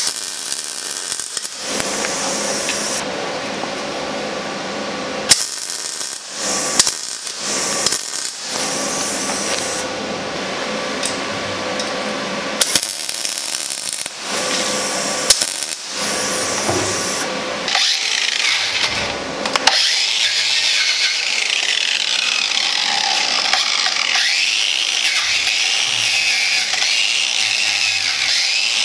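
Metalwork on a steel skid steer bucket: a steady hissing crackle, broken off and restarted several times in the first half, then, from about two-thirds in, a power tool whose pitch sags and recovers as it bears on the steel.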